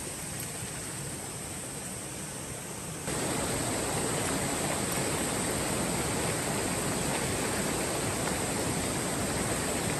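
Shallow rocky river flowing, a steady rush of water that grows louder about three seconds in.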